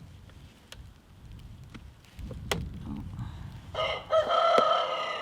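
A rooster crows once, one long call that starts near the end and is the loudest thing here. Before it come only a low rumble and a few faint clicks.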